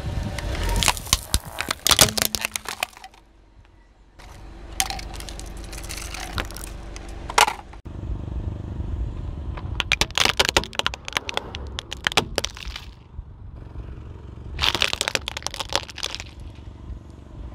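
A car tyre rolling over and crushing brittle objects, with several runs of sharp cracking and crackling and a couple of single cracks between them, over a low rumble from the car.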